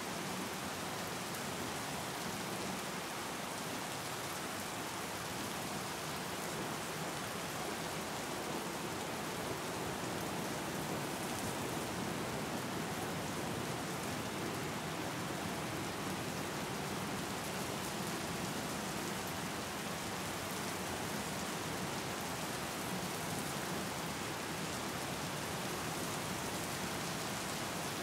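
Steady rain falling on open water, an even, unbroken patter of drops.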